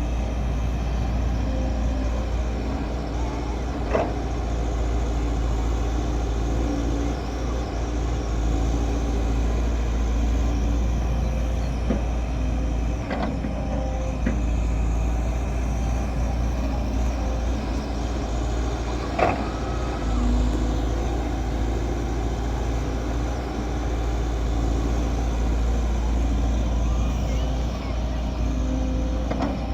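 Heavy diesel machinery, a backhoe loader and dump truck, running with a steady deep rumble. A few sharp clanks stand out, spaced several seconds apart.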